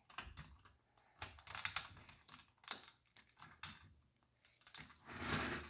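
Small plastic LEGO pieces clicking and clattering as hands press and fit a wheel assembly onto a brick model: a run of irregular sharp clicks, with a short rustling rush near the end.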